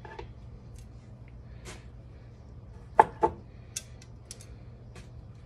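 Kitchen knife knocking and clicking on a wooden cutting board while cutting papaya: a few scattered light clicks, with two sharper knocks close together about three seconds in, over a faint steady low hum.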